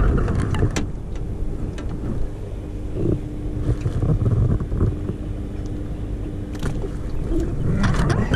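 Steady low rumble of wind and water around a small fishing boat, with a steady hum and scattered knocks and rustles as a landing net and a flathead are handled on the carpeted deck.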